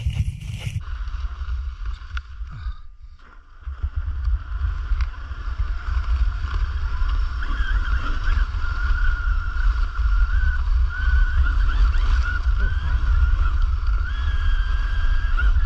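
Whine of a 1/5-scale RC car's Hobbywing 70125 brushless electric motor as the car drives, wavering in pitch with the throttle, over a constant low rumble. The sound drops away briefly about three seconds in, then picks up again louder.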